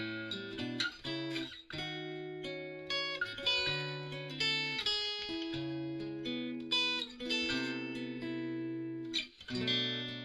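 Solo steel-string acoustic guitar played fingerstyle: a plucked melody over held bass notes, with short breaks between phrases about two seconds in and near the end.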